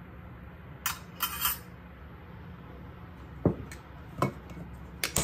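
A metal spoon clinking against a small glass bowl in a quick cluster of light clinks, followed by two duller knocks and a few clicks of dishes being handled.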